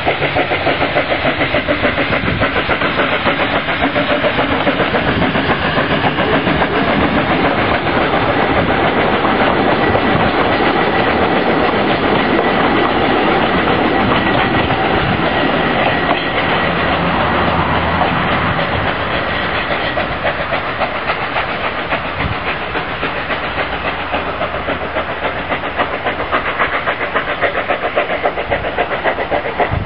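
A 2 ft 6 in gauge steam locomotive and its train of carriages passing close by: the engine's exhaust chuffs in a quick rhythm, and the carriage wheels clatter over the rail joints as they roll past. The sound eases off a little in the second half as the train moves away.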